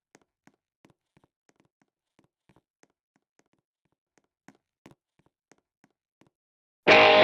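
Faint scattered ticks and taps, then loud electric guitar music starts abruptly near the end.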